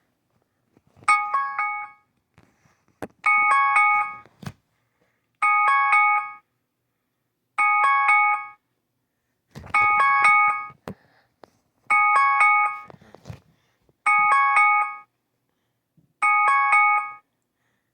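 iPhone alarm ringing: short bursts of quick, multi-note electronic chimes, each about a second long, repeating evenly about every two seconds, eight times over.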